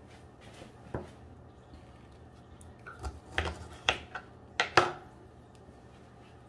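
Kitchen clatter: about half a dozen sharp knocks and clinks of dishes and utensils being handled on a counter, most of them close together in the middle of the stretch.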